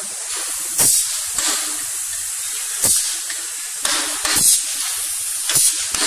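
Pneumatic cylinders of a pick-and-place robot arm actuating, with short sharp bursts of compressed air exhausting from the valves about six times over a steady background hiss.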